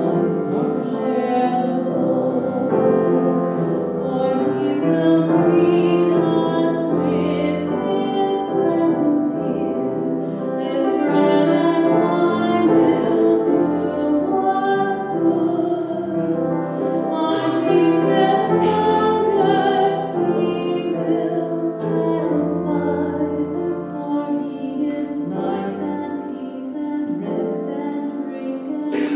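Slow church music: voices singing over a piano or keyboard accompaniment.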